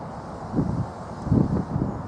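Miniature railway passenger coaches rolling past on the track, a steady low rumble of wheels on rail with two louder knocks about half a second and a second and a half in.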